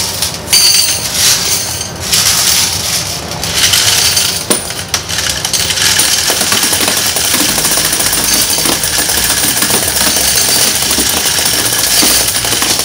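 Laundromat quarters rattling and clinking through a hand-cranked coin counter as they are fed in: a dense, continuous clatter that steadies after the first couple of seconds.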